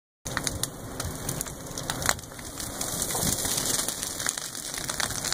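Dry prairie grass and leaf litter burning close by: a steady rushing crackle of flames with frequent sharp pops and snaps.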